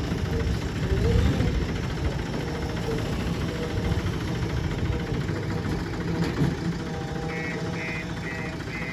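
Backhoe loader's diesel engine running steadily, with a series of short, evenly spaced beeps, about three a second, starting near the end.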